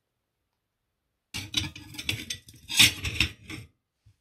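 Steel clutch plates from a 1924 Bugatti Brescia clutch clinking and clattering together as they are handled and set down on a cutting mat, a burst of about two and a half seconds starting just over a second in and loudest about halfway through.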